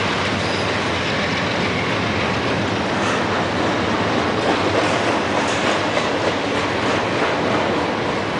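Double-stack intermodal container train passing close by: a steady, loud rumble of steel wheels rolling on the rails, with a few faint clicks from the cars in the middle.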